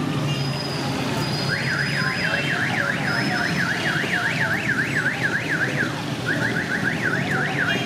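A car alarm's electronic siren, rising and falling in pitch about three times a second, with a short run of quicker chirps a little after the middle before the sweeping resumes, over a steady low hum of street noise.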